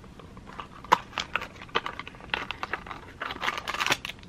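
A small paperboard box being opened by hand: scattered taps and scrapes of the cardboard, a sharp click about a second in, then a denser crinkling rustle of packaging about three seconds in as the item comes out.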